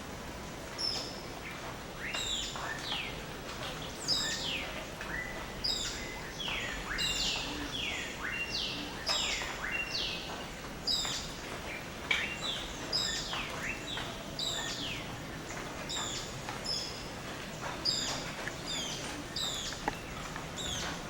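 Dawn chorus of several tropical forest birds: many short whistled notes, most sliding downward, overlapping one another without a break.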